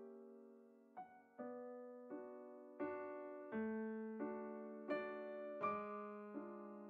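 Slow solo piano background music: single notes and chords struck about every two-thirds of a second, each left to fade.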